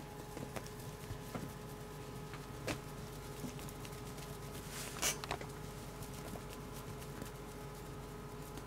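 Kittens' paws patting and scuffling on a quilted bed cover as they play with a feather toy, with one louder short rustle about five seconds in, over a steady low hum.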